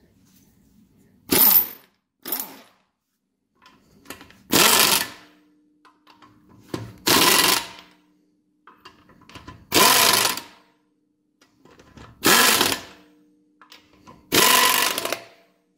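Impact wrench (Earthquake XT) hammering lug nuts snug on a car wheel: two quick blips of the trigger, then five short bursts of under a second each, spaced about two and a half seconds apart, one for each lug nut.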